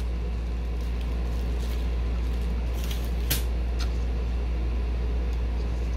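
Steady low background hum, with a few faint clicks and taps from small craft materials being handled, the clearest about three seconds in.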